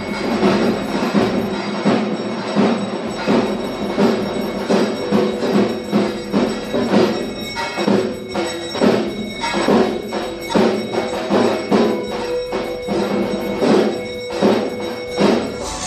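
Music with a steady beat of struck percussion, a strike about every two-thirds of a second, over bell-like ringing tones.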